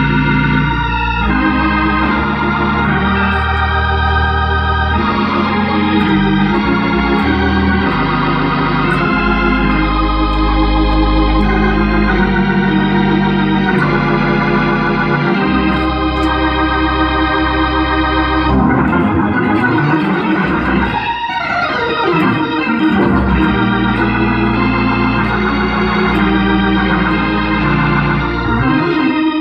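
Hammond organ played in gospel style: held chords over a low bass line. About two-thirds of the way through, the bass drops out for a few seconds during a sweeping run, then comes back.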